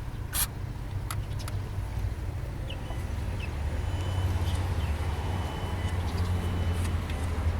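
Audi A4 B6 1.9 TDI four-cylinder diesel idling steadily with an even low pulse, a little louder from about halfway. The mechanic blames the engine's noise mainly on the belt tensioner.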